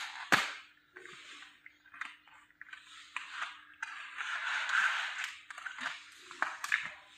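Plastic sticker packaging being handled and crinkled, with a sharp snap just after the start, a longer stretch of rustling a few seconds in, and a couple more small clicks near the end.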